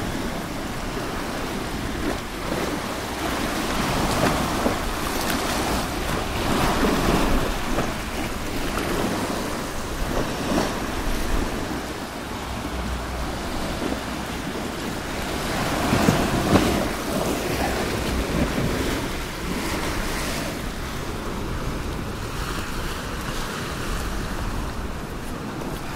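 Sea waves washing in and breaking on rocks, swelling louder every few seconds, with wind buffeting the microphone.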